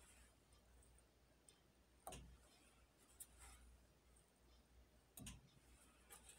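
Near silence: room tone with light scratching and two faint taps, about two and five seconds in, from a small tool and hand working wet acrylic paint on a canvas.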